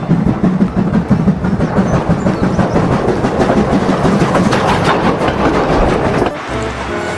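Steam-train chugging and clattering sound, the kind played by or dubbed onto a Thomas the Tank Engine toy train. It goes steadily, then cuts off abruptly about six seconds in, where a few steady tones take over.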